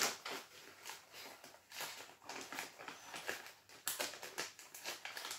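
Thin plastic packaging crinkling and rustling as a small bag is torn open and handled, a stream of irregular crackles.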